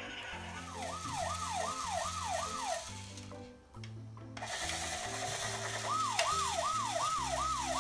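A toy rescue helicopter's electronic siren sounds twice. Each time it gives a run of about five quick whoops that rise and slide back down, over a simple electronic tune of low stepped notes.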